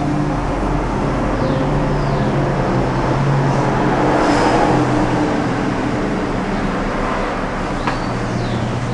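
Steady engine hum under loud rushing noise, like a motor vehicle running, with a few faint high squeaks.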